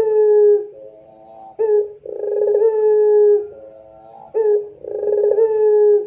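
Puter pelung (ringneck dove) cooing in long drawn-out calls: one call ends just as the sound begins, then two more follow. Each opens with a short sharp note and then holds a long, slightly falling coo for over a second. It is the kind of call played as a lure to prompt caged doves to start cooing.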